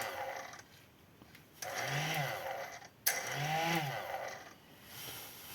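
Moulinex hand blender motor run twice in short bursts, each time rising in pitch as it spins up and falling as it is released. The blender now starts properly after its triac has been replaced.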